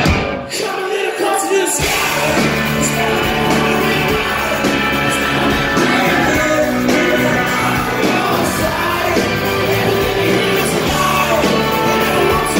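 Live rock band playing with lead vocals, electric guitars and drums. The low end drops out briefly, and the full band comes back in about two seconds in.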